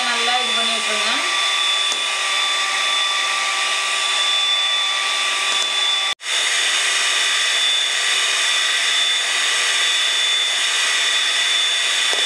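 Electric hand mixer running steadily, its twin beaters whipping egg whites in a plastic bowl toward a creamy froth. The sound cuts out for an instant about six seconds in and then continues.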